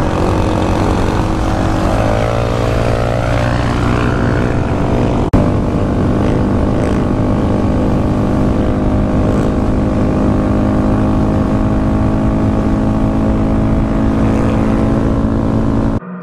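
Honda Grom's 125 cc single-cylinder engine running steadily at cruising speed through a Yoshimura exhaust, with wind rush on the helmet microphone. There is an abrupt cut about five seconds in.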